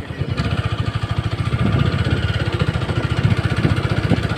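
Motorcycle engine running steadily while the bike is ridden along a dirt track, a fast, even firing beat.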